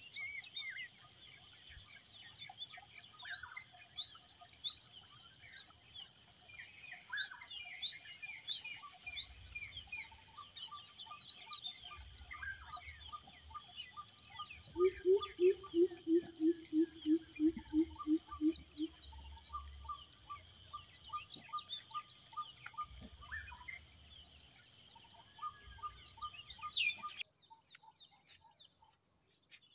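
Many birds chirping and calling, with short rising and falling notes and repeated trills, over a steady high insect drone. Midway comes a run of about a dozen low, evenly spaced calls, the loudest sound. Near the end the sound drops suddenly to a few faint chirps.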